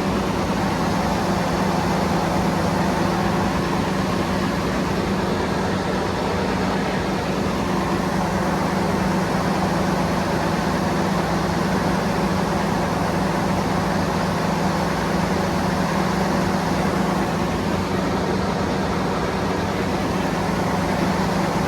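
Engine running steadily with a constant low hum, the cable puller working through a pull of underground power cable.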